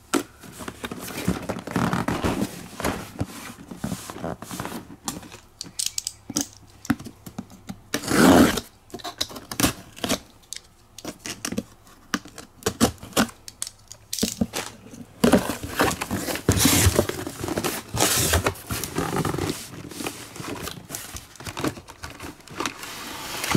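Packing tape on a corrugated cardboard case being slit with a utility knife and pulled open, then the cardboard flaps folded back and handled. It comes as a string of irregular scrapes, rips and rustles, the loudest about eight seconds in.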